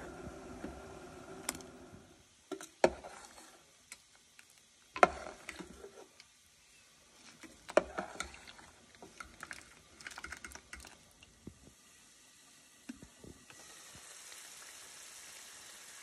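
A metal spoon knocking and clinking against a stainless-steel pot as grains are swished in water, a scattered handful of sharp clicks. Near the end a curry base starts sizzling steadily in a pot.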